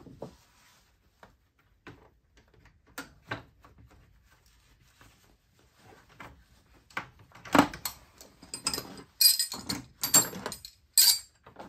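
Hand work refitting a serpentine belt on a car engine: scattered light clicks and knocks of the belt and pulleys being handled, then from about seven seconds in several louder metallic clanks and rattles as the belt is worked onto the pulleys and the tensioner let back.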